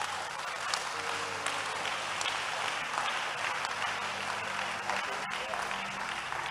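A church congregation applauding, a steady clapping that eases slightly near the end.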